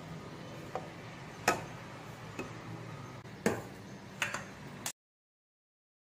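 Scattered light clicks and taps of a spoon against a plastic blender jar as spices are added, about six in four seconds, over a low steady hum. The sound cuts out completely near the end.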